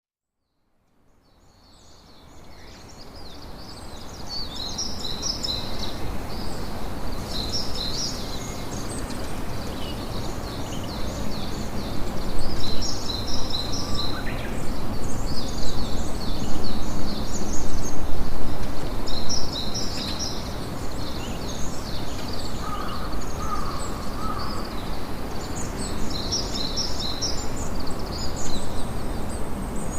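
Steady rush of sea surf and wind, fading in over the first few seconds and swelling louder in the middle, with birds chirping in quick high clusters throughout.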